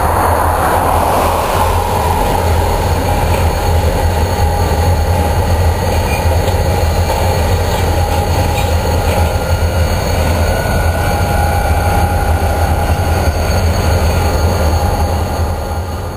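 Rochester & Southern freight train rolling past: a steady, loud rumble of diesel locomotives and rolling cars, with a thin steady squeal from the wheels. It fades out at the very end.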